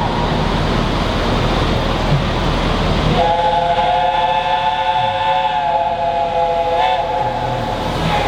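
Steam locomotive 60163 Tornado: steam hissing, then about three seconds in its whistle sounds, a chord of several notes held steadily for about five seconds to the end.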